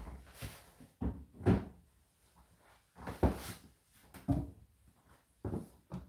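Dull knocks and thumps from hands handling the open Indesit condenser tumble dryer's door and plastic front panels, about five, irregularly spaced.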